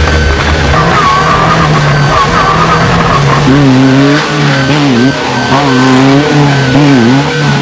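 Off-road race vehicle's engine running hard, its pitch rising and falling over and over as the throttle comes on and off, most plainly from about halfway through.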